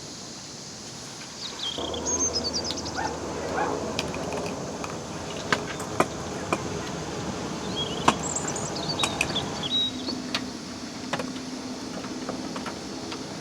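Outdoor ambience with birds chirping in short high trills now and then, over a low hum that comes in about two seconds in. Scattered sharp clicks and knocks sound through the middle.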